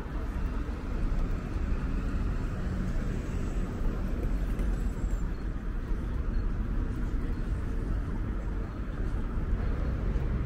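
City street traffic noise: a steady rumble of passing cars.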